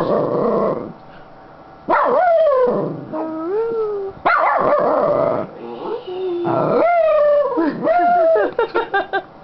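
Miniature Schnauzer howling and 'talking' in a happy, excited mood: about five drawn-out calls whose pitch swoops down and back up, ending in a quick run of short yips.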